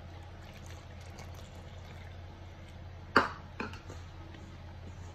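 Water poured from a cup into flour in a stainless steel bowl and worked in by hand. Two sharp knocks come a little after three seconds in, over a steady low hum.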